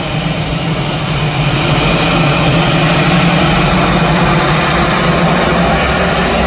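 Airbus A320 jet engines running loud and steady as the airliner rolls along the runway, the noise building a little over the first two seconds.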